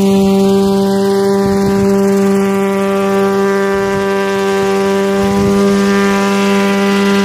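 Small coaxial helicopter flying low, its engine and rotors giving a steady droning hum at one unchanging pitch.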